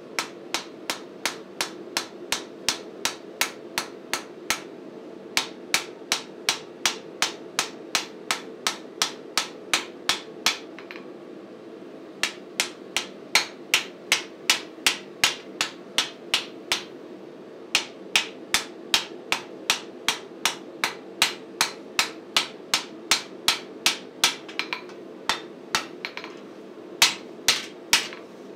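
Hand hammer striking red-hot flat steel bar on an anvil, at an even pace of about three blows a second. The blows come in several runs broken by short pauses, with two louder blows near the end.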